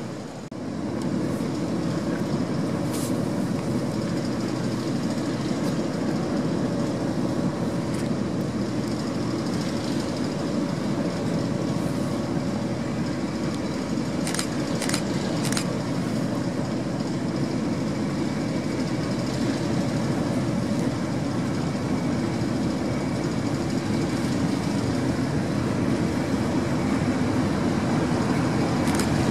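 Class 31 diesel locomotive's English Electric V12 engine running steadily as the locomotive creeps in along the platform, growing slightly louder near the end. A few faint clicks are heard, in the first few seconds and again about halfway through.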